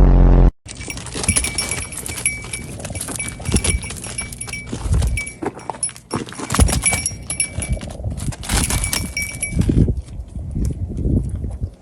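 Sheep jostling and scuffling: hooves clattering, knocks, and a small bell ringing in short, repeated jingles. It opens with a brief loud low hum that cuts off sharply.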